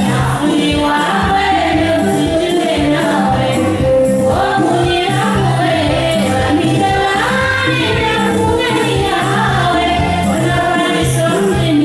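Women singing into microphones, with a group of women singing along, over music with a steady percussion beat.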